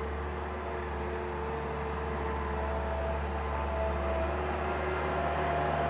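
Bobcat 763 skid-steer loader's diesel engine running as the machine reverses closer, getting gradually louder.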